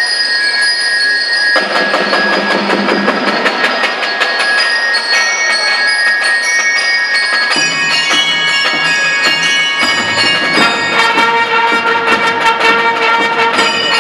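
Marching band playing: rapid drum strokes under sustained, ringing melodic notes, with a lower note joining about ten seconds in.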